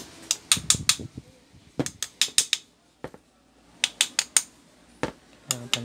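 Sharp taps and clicks in quick clusters of three or four, from the electric fan motor's end cover being knocked lightly to seat it on the housing, which is still a little loose.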